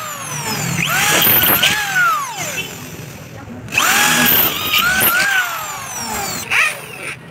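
Electric drill drilling holes through a hollow aluminium door-frame profile. The motor whines up and back down in pitch with each squeeze and release of the trigger. It comes in two long bursts with a pause of about a second between them, then a brief burst near the end.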